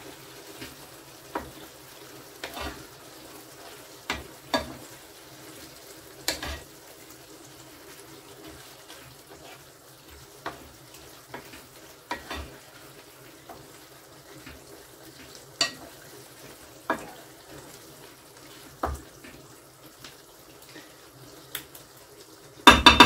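Minced beef and pork sauce with tomato juice cooking in a pan, sizzling faintly, with sharp knocks of a utensil against the pan every second or two as it is stirred. A louder clatter of cookware near the end.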